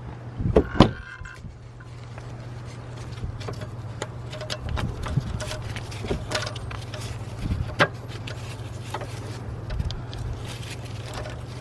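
Hand tools clicking and knocking against metal engine-bay parts, with two louder knocks about a second in, over a steady low hum.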